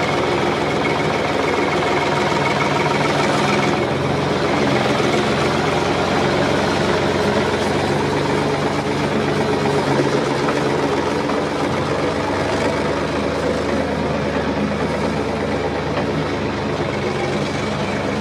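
A heavy engine running steadily at a constant pitch, with slight shifts in tone about 4 and 12 seconds in.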